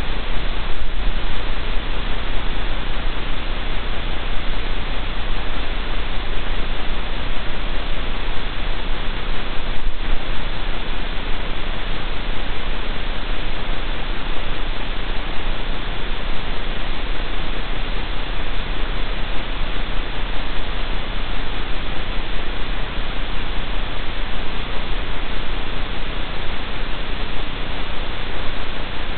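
Steady hiss of static from the den camera's microphone, with a low hum underneath.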